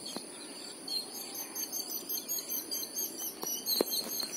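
Crickets chirring steadily in a high-pitched chorus, with a repeating chirp pattern. There are two short soft knocks about three and a half seconds in.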